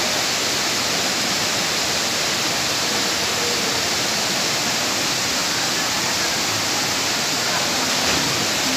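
Steady rush of a waterfall, an even hiss of falling water that does not change.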